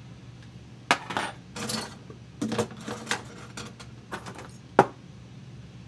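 Irregular light clicks, taps and clinks of small hard parts being handled by hand, as the HO-scale locomotive's stiff decoder wiring and plastic parts are worked. A sharp click about a second in and another near the end are the loudest.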